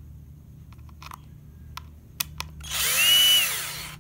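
Cordless power driver spinning a hex bit for about a second and a half, its motor pitch rising then falling, backing a hex screw out of a plastic battery-pack case; a few light clicks come before it.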